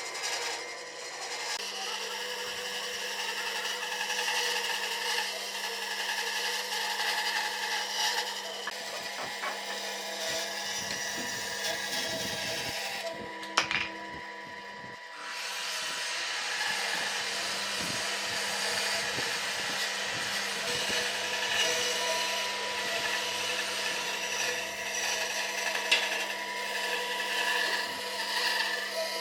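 An electric power tool working wood: a steady motor whine with rasping. About halfway through it drops away for a second or two after a sharp click, then resumes.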